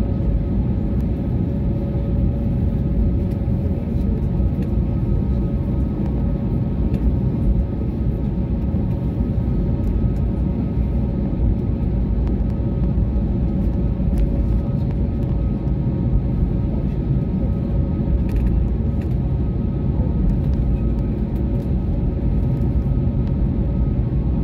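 Airliner cabin noise while taxiing: the steady rumble of the aircraft rolling along the taxiway, with the engines' constant hum at taxi power.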